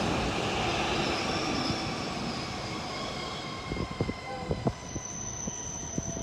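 A train running through the station, its rushing noise fading away as it recedes, followed from about four seconds in by a scatter of sharp clicks and knocks.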